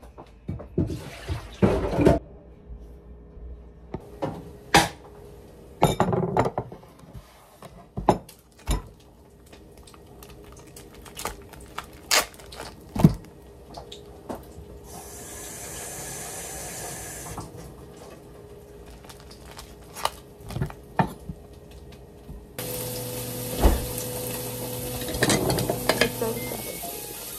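Kitchen work: dishes, pots and cutlery clinking and knocking again and again, with a tap running briefly partway through. Near the end a steady rushing noise with a low hum comes on suddenly.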